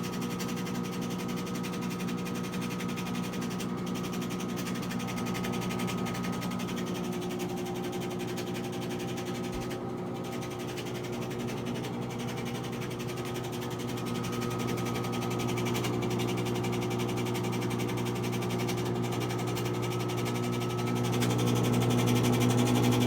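Whirlpool front-load washing machine on its drain and spin cycle: a steady machine hum holding several fixed pitches, which grows louder about 21 seconds in.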